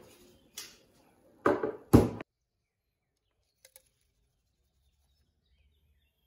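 Two short, loud noises a moment apart as a glass jar of cherries and sugar is handled, followed by near silence.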